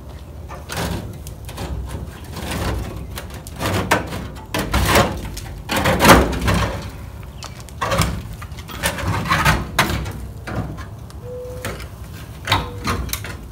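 Rusted sheet metal on the nose of a 1958 VW bus being worked loose by hand: irregular scrapes, creaks and knocks that come in uneven bursts, the loudest about halfway through.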